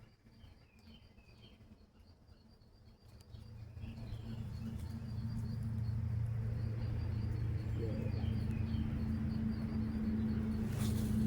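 Birds chirping over a fast, regular high-pitched pulsing, outdoors by a pond. About three and a half seconds in, a steady low hum comes up and stays as the loudest sound, with a sharp click near the end.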